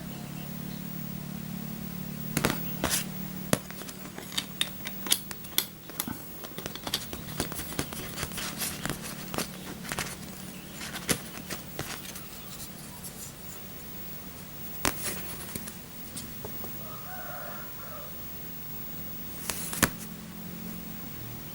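Packaging and the adapter being handled: irregular clicks and taps, thickest in the first half and sparse later, over a steady low hum.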